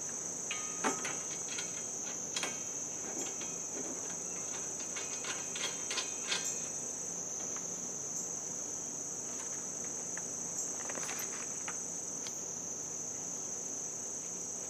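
Steady high-pitched insect chorus, with scattered sharp metallic clicks and taps from hand tools, mostly in the first half and again about eleven seconds in.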